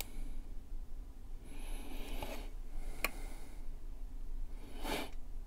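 Nitrile-gloved hands handling a plastic model car body and pressing down thin masking tape: soft rubbing and rustling, with one sharp plastic click about three seconds in and another rustle near the end.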